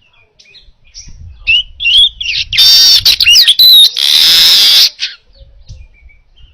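Manyar (weaver bird) song: soft scattered chips, then rising chirped notes about a second and a half in, building to a loud, harsh, buzzing chatter in two long stretches, before it falls back to quiet chips.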